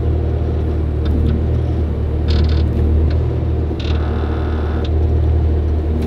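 Skid steer engine running steadily with a loud low hum, its bucket prying at a paint can lid with a clamped-on can opener; two short higher-pitched noises come about two and four seconds in.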